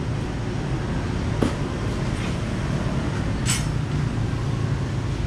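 A steady low rumble, like a running engine or nearby traffic, with one sharp knock about a second and a half in and a brief high hiss about three and a half seconds in.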